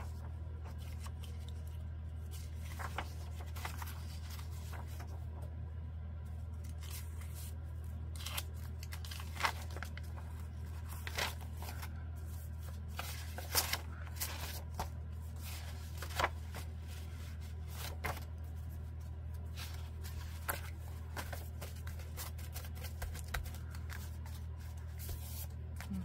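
Loose sheets of old book paper being handled and stacked, with short, scattered rustles and taps, over a steady low hum.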